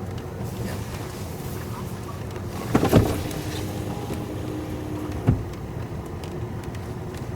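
Steady vehicle noise heard from inside a car cabin, with a brief knock about three seconds in and another a little after five seconds.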